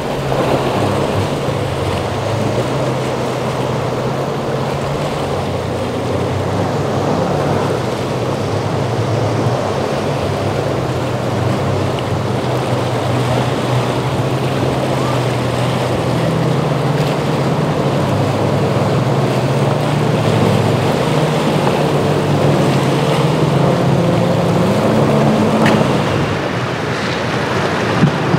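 Motorboat engines running, over the rush of surf and wind on the microphone; the engine note rises briefly near the end.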